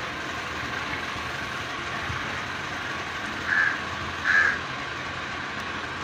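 Indian ringneck parrot giving two short, harsh squawks a little under a second apart, over a steady background hiss.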